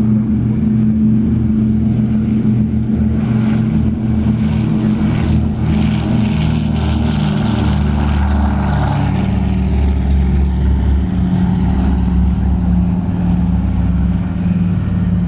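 Douglas DC-3's twin radial piston engines running at takeoff power as the airliner rolls down the runway, lifts off and climbs away. It is a loud, steady propeller drone, fullest around the middle as the aircraft passes, and its pitch drops a little as it climbs away.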